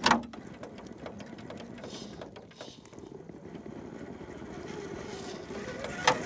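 Electric motor and geared drivetrain of a 1/10 scale SCX10 II RC rock crawler whining steadily as it crawls over rocks. A sharp knock comes just after the start and another near the end.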